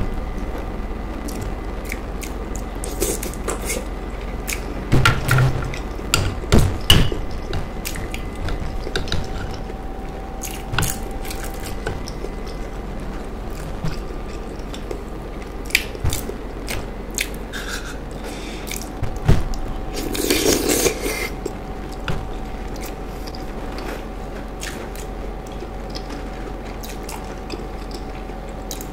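Close-miked eating of ripe plantain and fish stew: wet chewing with many sharp mouth clicks and smacks, busiest a few seconds in, and a longer noisy stretch about two-thirds through. A faint steady hum runs underneath.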